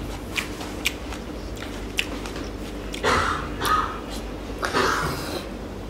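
Close-miked eating: a few sharp mouth clicks and smacks, then loud crunchy bites and chewing into a fried piece of food eaten by hand, in three bursts over the second half.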